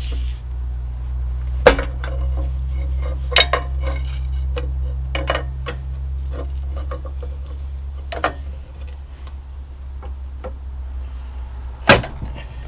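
Scattered metal clinks and knocks of hand tools and loose parts while the timing chain cover of a Ford Taurus Vulcan V6 is worked off, with a sharp knock about two seconds in and another near the end. A steady low hum runs underneath.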